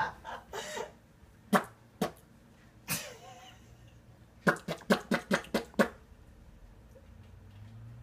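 A person making a strange noise with the voice: short, sharp coughlike bursts, with a quick run of six or seven pulses in about a second and a half around the middle.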